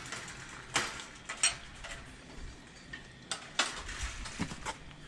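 A few scattered light clicks and knocks, with no steady sound under them.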